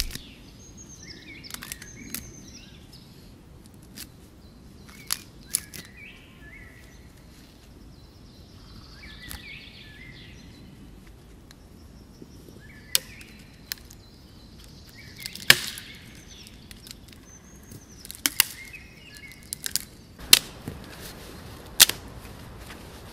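Dry sticks snapping by hand in sharp single cracks, a few early on and more often and louder in the second half, as firewood is broken up to restart a campfire. Birds chirp in the background.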